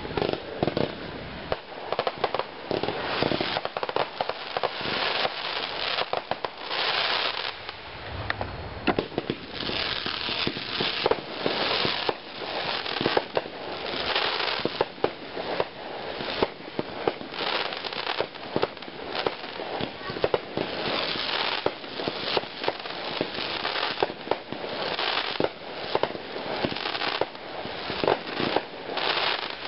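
Fireworks going off without a break: many sharp, irregular reports from launches and bursting shells, with repeated stretches of dense crackling about a second long.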